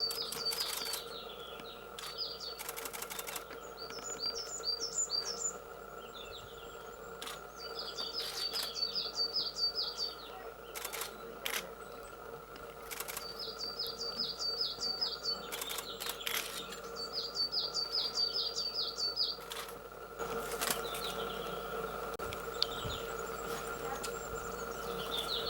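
A small songbird singing short high phrases of quick repeated down-slurred notes, one phrase every few seconds, with scattered sharp clicks or splashes between them over a faint steady hum.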